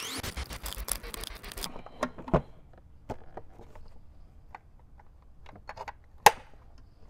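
Plastic side cover of a Can-Am Ryker being handled and pressed back into place on the bike: a quick run of rattling clicks at first, then scattered taps and scrapes, and one sharp click about six seconds in.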